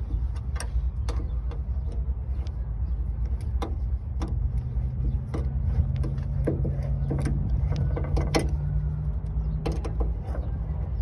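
Irregular sharp metallic clicks and taps of a ratchet and hood-hinge bolts and washers being handled and fitted, over a steady low rumble. A low steady hum joins from about four seconds in and stops near the end.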